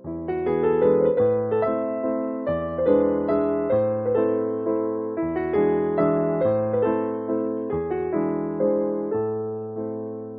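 Background piano music: a soft instrumental played as a steady flow of chords and melody notes, each note struck and then fading.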